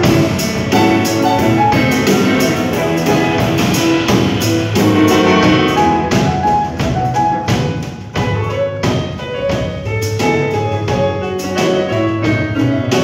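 Live small-band music, instrumental with no vocals: grand piano and a second keyboard, upright bass and a drum kit with cymbals playing together.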